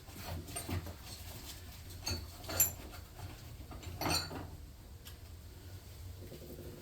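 A few light metallic clinks and knocks of small steel tools and parts being picked up and set down on a bench, the loudest about two and a half seconds in.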